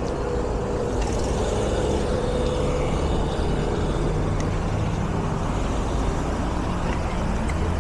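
Street traffic: a motor vehicle's engine running nearby over a steady low rumble.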